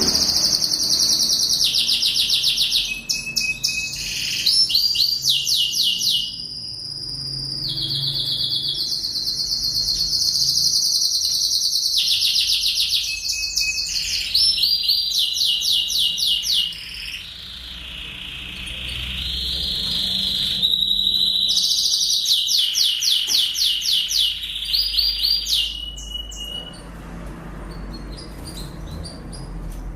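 Lancashire canary singing a long, continuous song of fast trills and rolls mixed with held whistled notes, easing to softer passages around the middle and again near the end.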